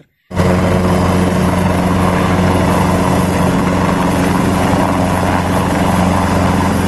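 Large helicopter flying low, its rotors and engines making a loud, steady noise. The sound cuts in abruptly a moment in.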